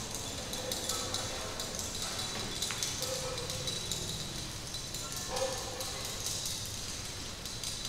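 Objects in a sound-art performance: a scatter of small ticks and taps, with a few short mid-pitched tones, the clearest past five seconds, over a faint steady high whine.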